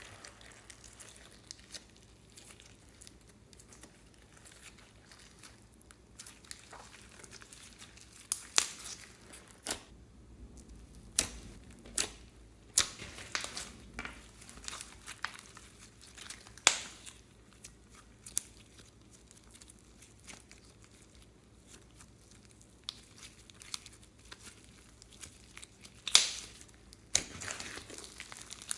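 Slime being squeezed and worked by hand, giving irregular crackles and sharp pops, with quiet stretches between; the loudest pop comes near the end.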